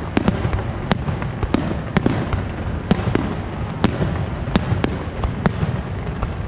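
Starmine fireworks barrage: shells launching and bursting in quick, irregular succession, about two sharp bangs a second over a continuous low rumble.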